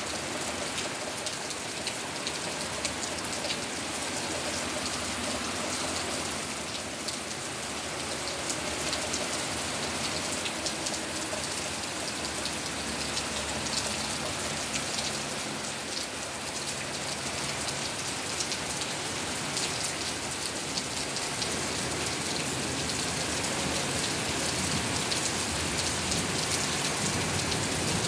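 Steady rain falling, with many close drops ticking against nearby surfaces; it grows slightly louder near the end.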